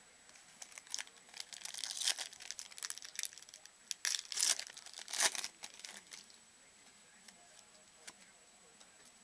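Plastic wrapper of a trading card pack being torn open and crinkled by hand: a dense crackling rustle for about five seconds, loudest in two spells. After that only a few faint clicks as the cards are handled.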